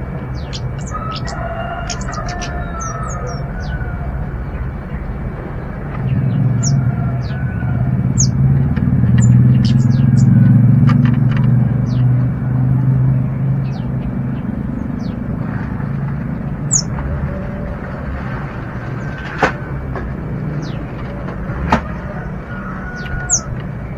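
Kemade birds calling in short, high, quick chirps scattered throughout. Under them a low rumble swells through the middle, like a passing vehicle, and two sharp clicks come near the end.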